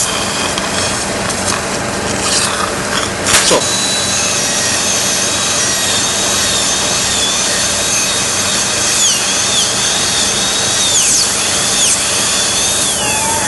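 Dental surgical handpiece starting up about three seconds in after some instrument handling and a click, then running with a steady high whine whose pitch dips several times near the end as it cuts the jawbone osteotomy for a basal implant.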